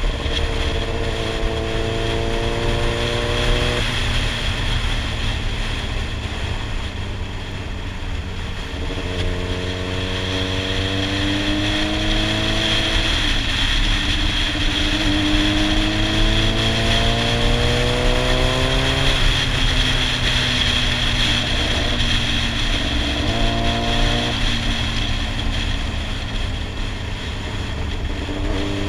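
Inline-four sport bike engine ridden at speed, its note climbing under throttle several times and dropping back in between, over steady wind rush on a helmet-mounted camera.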